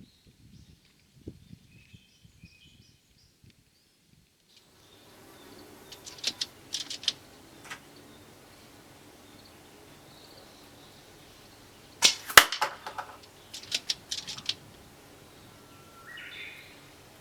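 Tokyo Marui L96 AWS spring-powered bolt-action airsoft rifle: a few sharp clicks of the bolt being worked, then a single loud shot about twelve seconds in, followed by more clicks. Faint bird chirps come early on.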